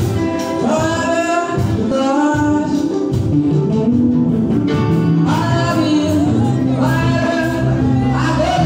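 Live gospel worship song: a male lead singer with a backing vocal group over keyboard accompaniment, the singing continuous.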